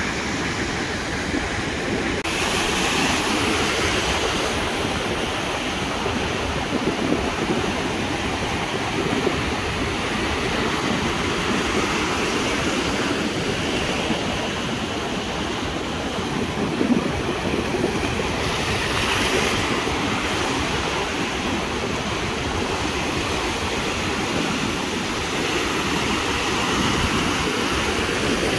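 Ocean surf breaking and washing against a concrete breakwater: a continuous rush of white water that swells slightly as waves come in.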